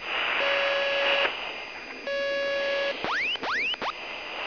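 Electronic beep tone on the car's radio intercom, sounding twice for just under a second each over steady radio hiss. A quick run of rising electronic chirps follows near the end.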